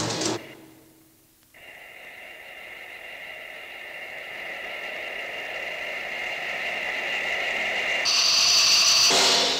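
Experimental film-score sound: the music breaks off, then a steady high, whistling two-note electronic tone with hiss swells slowly. About eight seconds in it jumps to a louder, higher pitch, then fades away.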